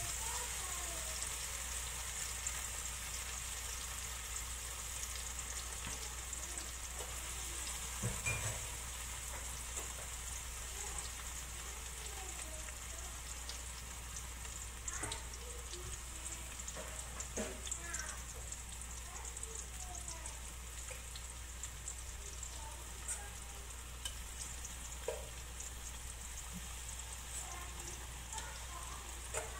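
Tofu cubes frying in shallow olive oil in a nonstick wok: a steady sizzle with scattered small crackles and pops. There are a few light knocks, the clearest about eight seconds in.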